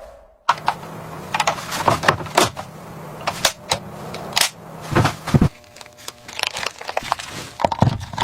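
A run of irregular clicks and knocks over a low steady hum, starting about half a second in.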